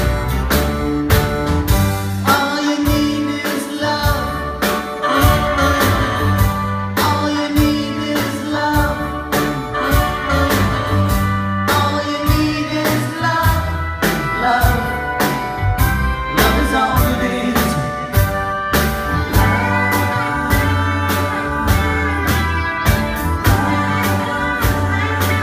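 Live rock band playing: electric guitars, keyboard, bass and drums, with singing.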